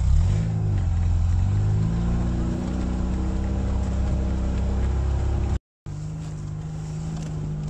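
Lada Niva's engine revving up as the 4x4 pulls away over muddy ground, then running steadily under load. The sound cuts out completely for a moment about three-quarters of the way through, then the engine carries on at a steady pitch.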